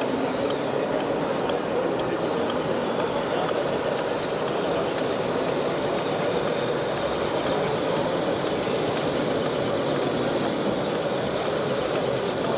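Steady, even mechanical din of 1/14-scale radio-controlled trucks and construction machines running, with a faint high squeak about four seconds in.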